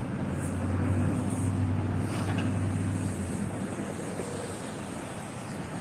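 Low, steady motor-vehicle engine rumble, fading out a little over three seconds in, over constant outdoor traffic and wind noise.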